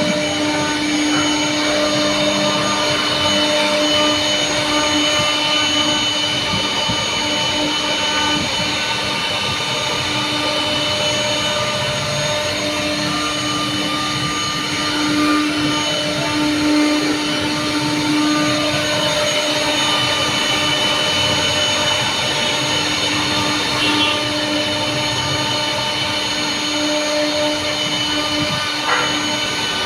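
Woodworking power tool's electric motor running steadily: a continuous hum and whine that stays even throughout.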